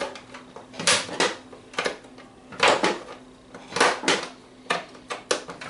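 Hand opener tool punching and prying its way through the thin metal lid of a sealed ammunition spam can: a run of sharp metallic clicks and clanks, often in pairs, about one or two a second.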